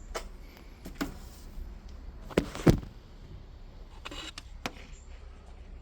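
A few clicks and knocks from handling a window box fan's power cord and plug. The sharpest, two knocks close together, come about halfway through.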